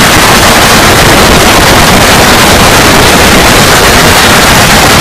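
Loud, steady storm noise: wind and driving precipitation beating down hard.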